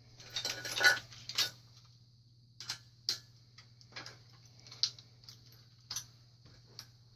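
Irregular light metal clicks and taps from a mountain bike's handlebar stem and fork parts being shifted by hand to line them up. The clicks come thickest in the first second or so, then singly about once a second.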